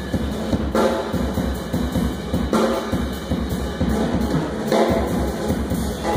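Jazz big band playing, with the drum kit to the fore: a busy snare and bass drum pattern and a strong accent about every two seconds.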